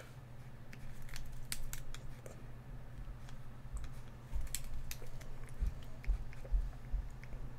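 Light, irregular clicks and taps from working at a computer drawing desk, over a steady low hum. A few soft low thumps come in the second half.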